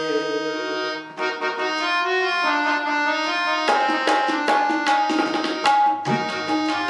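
Harmonium playing a sustained melody of held reed tones. A little past halfway, tabla strokes come in, a quick run of drum strokes over the harmonium.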